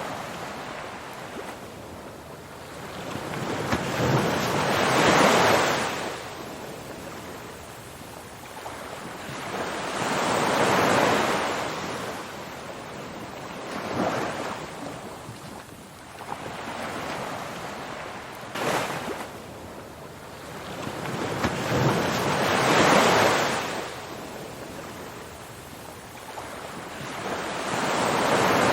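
Ocean waves washing onto a shore, each one swelling and fading away every five to six seconds over a steady hiss of surf. About two-thirds of the way in there is one brief sharp splash.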